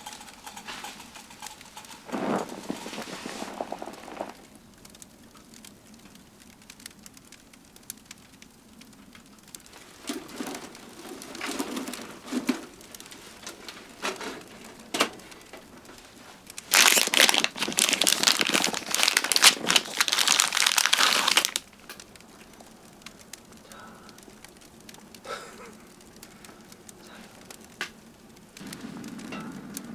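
Bursts of crinkling, rustling noise come and go, the loudest lasting about five seconds past the middle.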